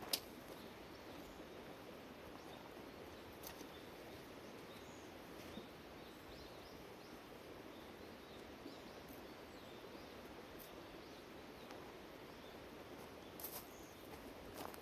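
Steady outdoor background noise with faint bird chirps and a few sharp clicks, the loudest just after the start.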